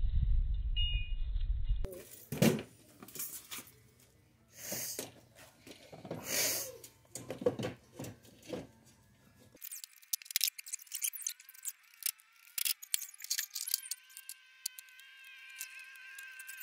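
A low rumble for about the first two seconds, then metal engine parts and hand tools clattering, scraping and rattling as a Honda GX200 engine is handled and worked on. A thin, high steady buzz comes in near the end.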